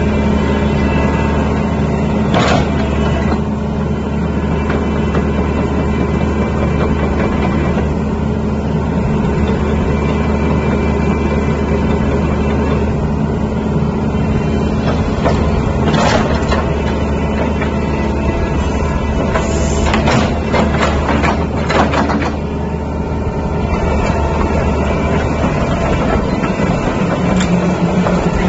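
Sumitomo SH120 excavator's diesel engine idling steadily with a deep, even hum. A few short clanks break in, in a cluster about two-thirds of the way through.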